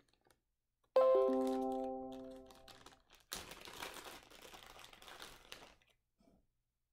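A single pitched note starts suddenly about a second in and rings out, fading over about two seconds. After a short gap come a couple of seconds of rustling and light clicking as small plastic board-game miniatures are handled in their packaging.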